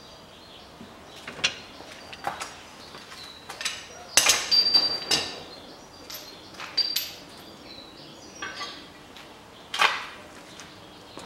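Metal hand tools and steel parts clinking and clanking as they are handled and set down: a string of separate knocks, a few ringing briefly, with the loudest cluster about four to five seconds in.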